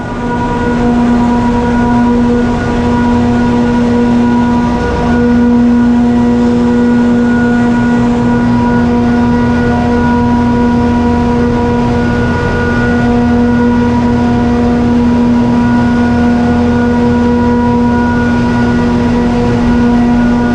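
Steady loud drone of running machinery in an ammonia refrigeration plant: a constant rushing hum with a steady pitched whine held at one pitch throughout.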